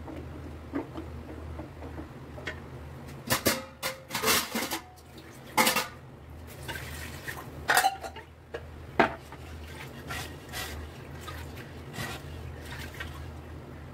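A ladle stirring a thick lentil stew, scraping and knocking against the metal pressure-cooker pot in scattered clatters, with a cluster of them a few seconds in.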